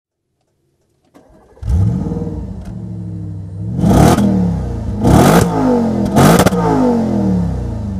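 2013 Audi RS5's 4.2-litre V8 starting up, catching with a loud flare about a second and a half in and settling to idle, then revved in three quick throttle blips, each rising and falling, before settling back to idle.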